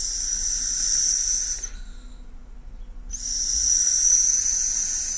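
An electronic cigarette being drawn on: two long hissing draws through the atomizer, each about two seconds or more, with a short pause between.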